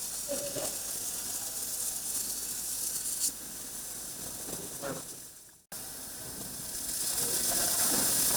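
Steady high hiss and sizzle from a fiber laser welding machine at work. It cuts off abruptly about five and a half seconds in, then comes back and grows louder.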